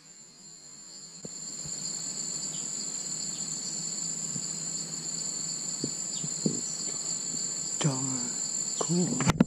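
Insects droning steadily in forest, a constant high buzz at two pitches, with a sharp click near the end.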